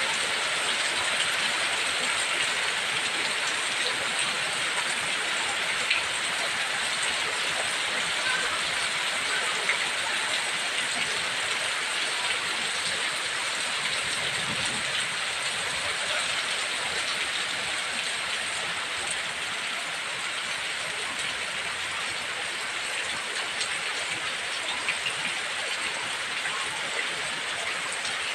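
Heavy rain falling steadily, a dense even hiss of drops with scattered individual drop ticks.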